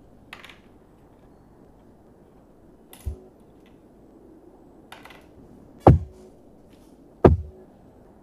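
A few separate knocks over a low steady background hiss, the two loudest close together near the end, each dropping quickly in pitch as it fades.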